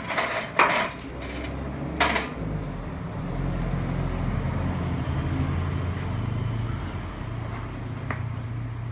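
A few sharp knocks in the first two seconds, then a low engine hum that grows louder and eases off again.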